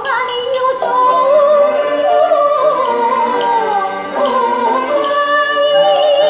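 A vinyl record playing on a Jensen JTA-230 three-speed stereo turntable: music with a singing voice whose melody slides up and down in pitch.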